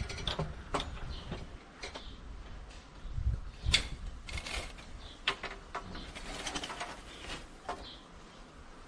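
Irregular knocks, clicks and short scrapes of hand work on timber, the loudest knock a little under four seconds in, with small birds chirping faintly in the background.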